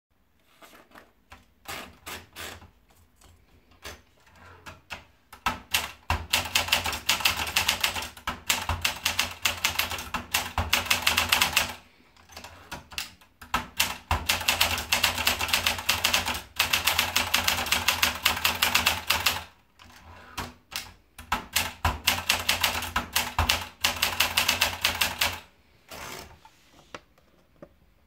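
Olympia Splendid manual portable typewriter: a few scattered clicks as the paper is fed in, then rapid keystrokes in three long runs, one per typed line, with short pauses between the runs and a couple of last clicks near the end.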